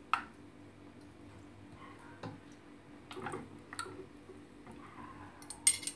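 Metal forks tapping and clicking against a terracotta dish while cooked chicken thighs are shifted around in it, with soft squishing of the meat. A louder, sharp clink near the end.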